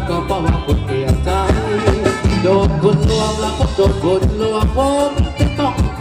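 Live Thai ramwong band music: a wavering sung melody over a steady drum beat.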